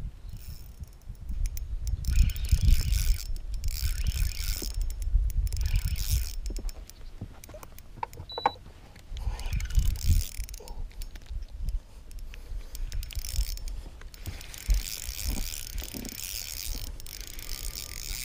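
Fishing reel being cranked in several spurts, its gears whirring with fast fine clicks as a fish is reeled in. A short high beep sounds about eight seconds in.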